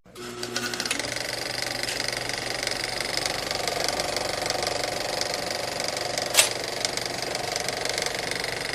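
A machine running steadily with a fast, even rattle, with one sharp click about six and a half seconds in.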